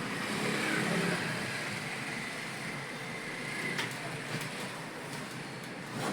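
Steady background noise, like distant traffic or an air conditioner, with a few faint isolated clicks.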